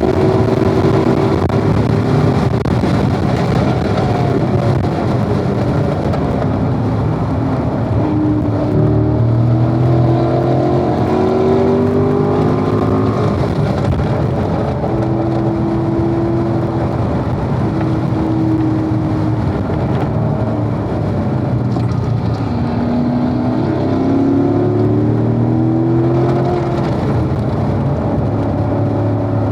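Corvette engine running hard on a race track. Its pitch climbs in several steps as it shifts up through the gears, holds steady for a few seconds, then climbs through the gears again, over steady wind and tyre noise.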